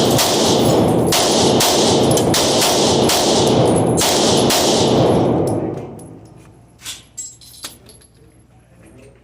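Glock 19 9mm pistol fired in a fast string, several shots a second, the reports ringing on one another. The string stops about five and a half seconds in, followed by a few faint clicks.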